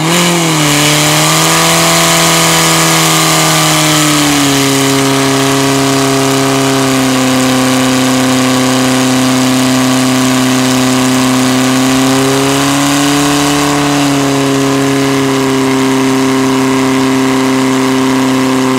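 Portable fire pump's engine running hard at high revs while pumping water out to the hose lines. Its pitch settles a little lower about four seconds in and lifts briefly after about twelve seconds.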